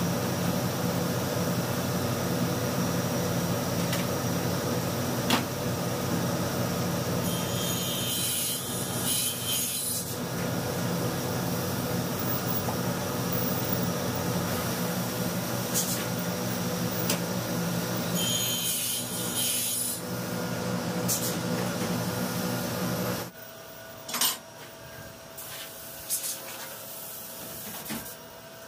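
Table saw running steadily, the blade cutting through a board twice, at about 7 and 18 seconds in, each cut lasting two or three seconds. The saw's running sound stops suddenly about 23 seconds in, leaving a faint hum and a few light knocks.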